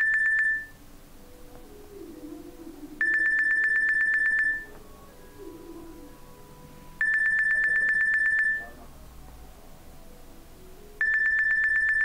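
Nokia N93i previewing a built-in ringtone through its loudspeaker: an electronic ring, a steady high tone pulsed in a fast trill. It comes in bursts about a second and a half long, repeating every four seconds: one ends about half a second in, two full rings follow, and another starts a second before the end.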